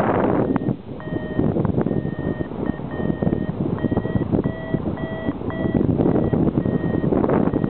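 Paragliding variometer beeping in short, evenly spaced tones, about two a second: the climb signal that the glider is rising in lift. Wind rushes on the microphone underneath, louder near the end.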